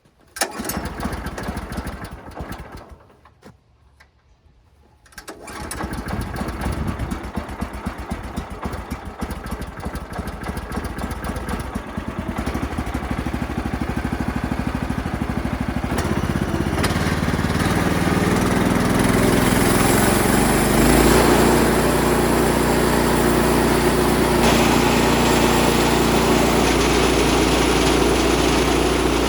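Small gasoline engine on a portable band sawmill starting: it fires briefly and dies after about two seconds, then catches about five seconds in and keeps running, getting louder as it is throttled up before settling to a steady run.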